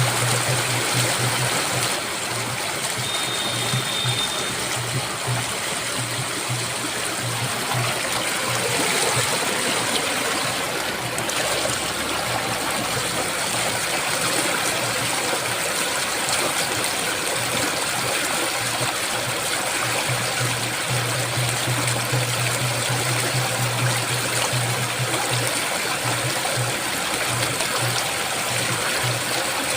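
Rushing water of the Ganges river, flowing in a steady, even rush.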